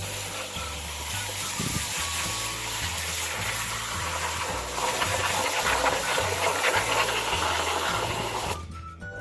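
Cold water running hard as wild garlic (ramps) is rinsed under it: a steady hiss that starts suddenly, gets louder and more splashy about halfway through, and cuts off shortly before the end.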